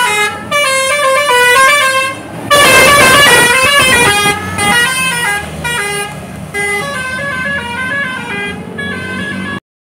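Bus telolet horn of the Basuri type playing a quick tune of stepped notes, with a louder cluster of several notes sounding together about two and a half seconds in. A low steady rumble runs underneath, and the sound cuts out briefly at the very end.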